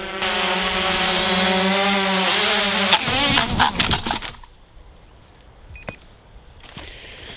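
SJRC F11 quadcopter's brushless motors whining steadily at close range, then about three seconds in a sharp impact and a quick clatter of spinning propellers striking as the drone crashes on landing, after which the motors go quiet.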